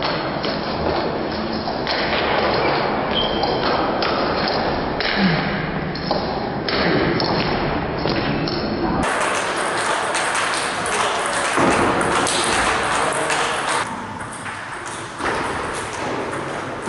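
Table tennis rally: the ball clicking back and forth off rubber bats and the table top, over a steady background noise of the hall.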